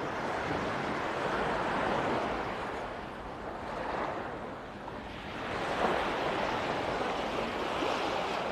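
Small sea waves washing onto a sandy beach, the wash swelling and fading every couple of seconds.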